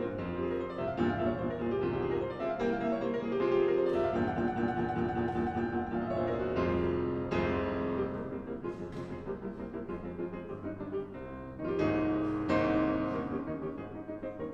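Solo piano playing classical music: a run of struck chords and notes, quieter for a few seconds past the middle, then louder chords again near the end.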